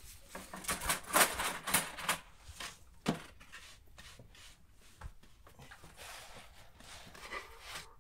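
Cloth rustling as a fabric wrap is pulled off a piece of dough, loudest in the first two seconds, with a sharp click about three seconds in. Then quieter pats and presses of hands flattening the dough on a floured wooden board.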